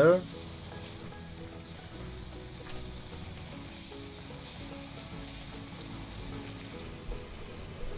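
Beef searing in hot oil on a grill pan, sizzling steadily, with soft background music.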